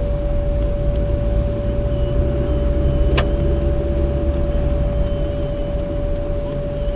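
A car driving, with a steady low engine and road rumble. A constant tone runs throughout, and there is a single sharp click about three seconds in.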